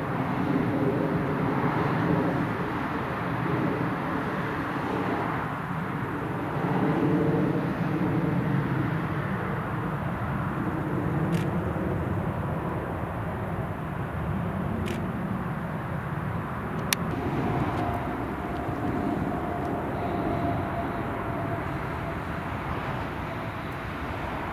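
Airbus A320 jet airliner's twin engines running at takeoff power: a steady jet rumble as the aircraft rolls down the runway and climbs away, with a faint steady whine joining in around the middle.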